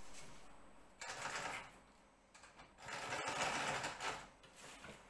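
Home sewing machine stitching through layers of nylon kite fabric in two short runs, the first about a second in and a longer one from about three to four seconds in.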